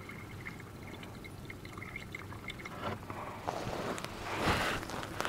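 Distilled water poured from a jug into a flooded lead-acid battery cell, a faint thin trickle into the filler hole. About three seconds in, louder rustling handling noise takes over.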